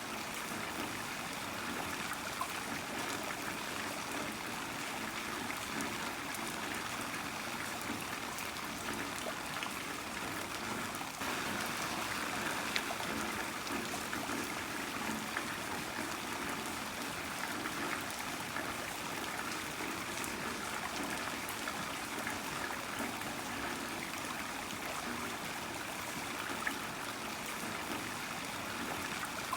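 Heavy rain falling steadily: a dense, even hiss of water with scattered drop ticks.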